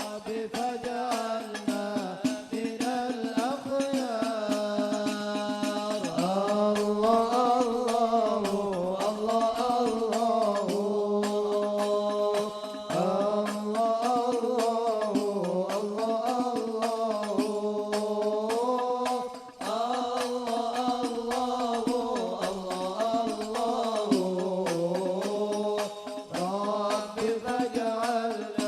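Sholawat, Arabic devotional praise singing, with a melismatic vocal line over hadrah frame drums striking in a dense, steady rhythm.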